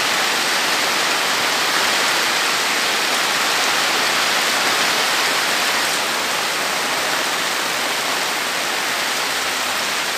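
Rain falling in a steady, even hiss.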